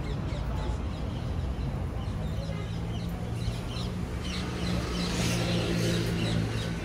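A steady low hum that starts about two seconds in and stops near the end, with many short high chirps over it.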